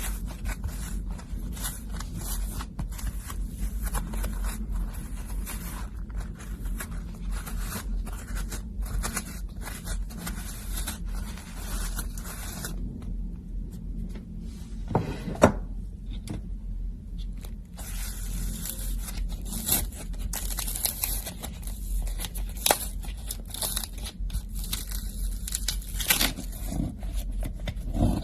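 Slime being worked by hand: stretched, pressed and folded, giving a dense run of sticky crackling and clicking. It eases off for a few seconds about halfway through, around one sharper snap, then picks up again.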